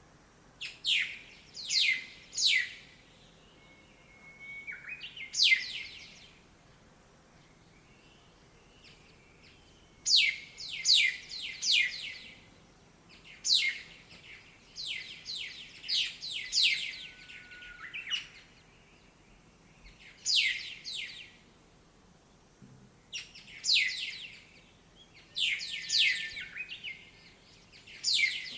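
Songbirds chirping: short, sharp, high calls come in quick clusters of two to four, with pauses of a second or two between the clusters.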